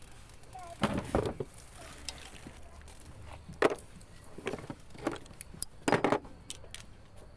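Metal tools and parts clinking and rattling in about five short bursts, the loudest clusters about a second in and near the end.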